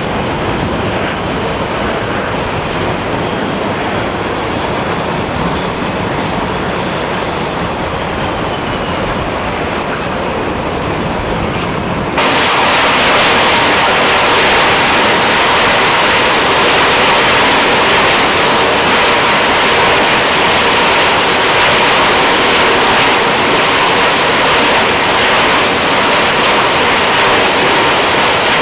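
Carrier jet fighter engines running on the flight deck: a loud, steady rushing noise. About twelve seconds in it abruptly gets louder, and a steady high whine comes in.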